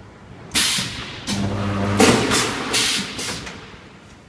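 Copper-to-aluminium tube butt welding machine running a weld cycle. A sudden loud hiss comes about half a second in, then a short low buzz of the welding current, then four more short hissing blasts.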